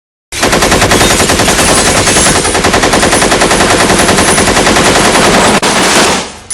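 Machine gun firing one long continuous burst of rapid shots, starting abruptly and cutting off about six seconds in.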